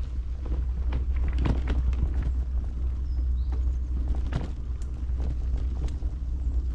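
Steady low rumble of wind on the microphone, with scattered knocks and clicks, the loudest about one and a half seconds in and again past four seconds, and a short high chirp about halfway.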